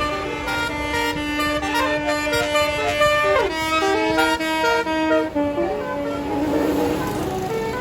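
Bus telolet horn, a multi-trumpet musical air horn, playing a tune note by note over a held low tone, with a quick downward slide partway through.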